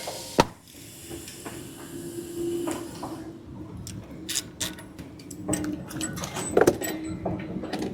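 Hand work on outboard propellers, removing prop nuts, washers and props: a hiss through the first three seconds, a sharp knock about half a second in, and then a run of small metallic clicks and knocks.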